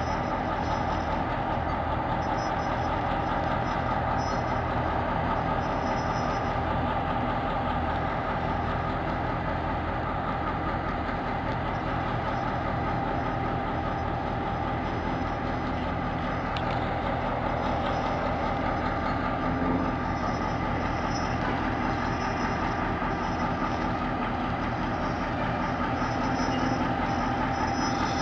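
EMD 645 V8 diesel engine of a DBR-class locomotive idling steadily.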